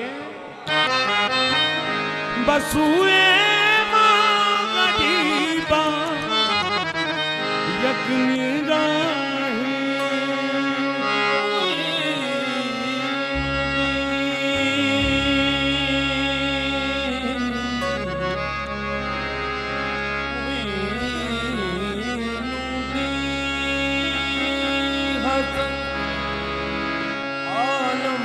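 Qawwali music: a harmonium playing a melody over tabla, with a low note held through the second half.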